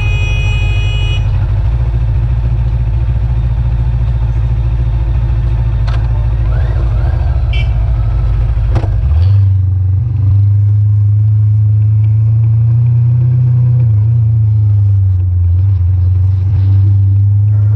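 Motorcycle engine running under the rider, a steady low rumble. About nine seconds in the bike pulls away and the engine settles into a steadier, slightly higher note as it rides on. A brief high-pitched tone sounds right at the start.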